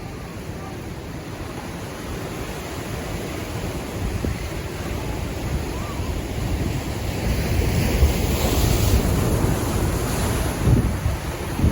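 Pacific Ocean waves washing in, swelling to a louder surge of surf about two thirds of the way through, with wind buffeting the microphone in low thumps near the end.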